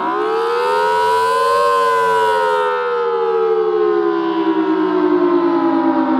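Federal Signal Thunderbolt 1000BT storm siren sounding: its pitch climbs quickly for about a second and a half, then slowly winds back down, as in a wail cycle.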